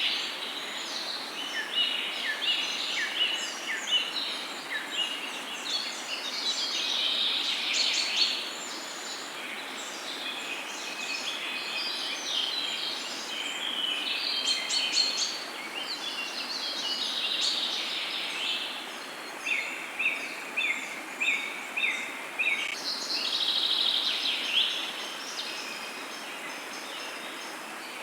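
A chorus of several songbirds singing and calling, overlapping chirps and trills, over a steady background hiss. Past the middle, one bird repeats a short note about twice a second for a few seconds.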